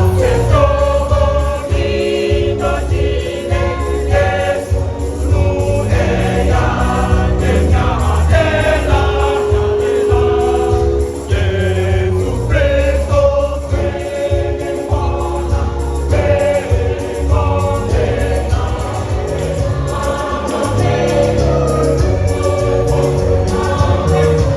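A junior choir singing a gospel song in several voices over a heavy bass and a steady beat.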